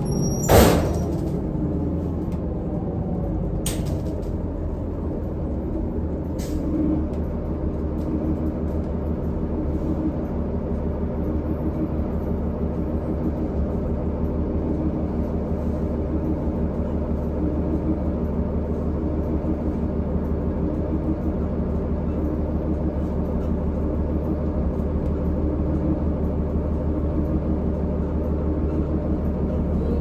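Interior of a New Flyer D40LFR diesel transit bus: its Cummins ISL inline-six engine running steadily with a low hum. About half a second in there is a sharp, loud burst of air, typical of the air brakes or air-operated doors. Two shorter, fainter bursts follow a few seconds later.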